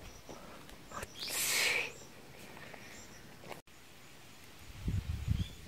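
Quiet forest ambience with faint high chirps about once a second. A brief hiss comes about a second and a half in, and a low rumbling noise near the end.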